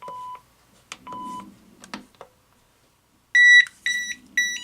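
GE 27998GE-6B cordless phone keypad: button clicks, each with a short steady key beep, in the first half. Near the end come three louder, higher-pitched beeps in quick succession.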